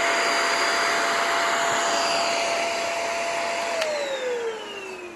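Cordless stick vacuum running on its highest power setting, a steady motor whine with a rush of air. Nearly four seconds in it is switched off with a click, and the motor winds down with a falling whine.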